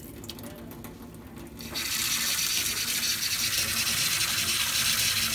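Tap water running into a stainless-steel sink over hands being washed; the flow turns full and loud about a second and a half in, then runs steadily.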